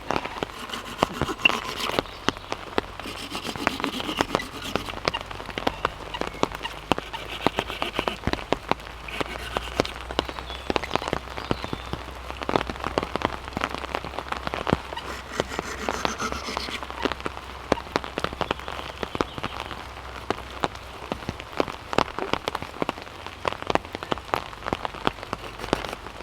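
Heavy rain falling, with dense, irregular sharp drop hits close by over a steady hiss.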